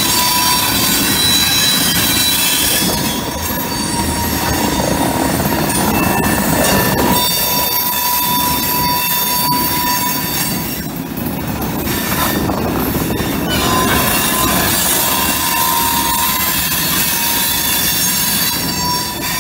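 Loaded covered hopper cars of a freight train rolling past, their steel wheels squealing in steady high tones over the rumble and clatter of the trucks on the rails.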